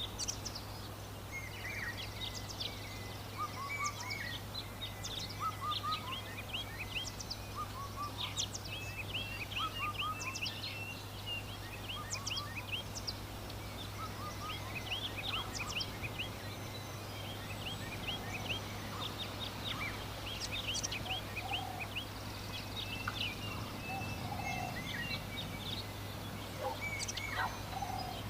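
Many small birds chirping in a dense, constant chatter, with occasional lower calls mixed in, over a steady low hum: rural summer afternoon ambience.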